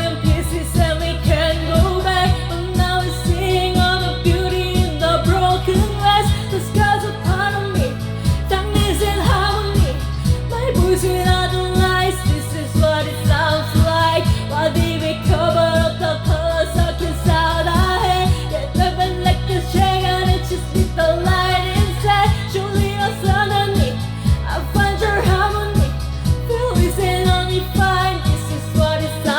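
Pop song with singing over a steady beat and a bass line that changes every few seconds.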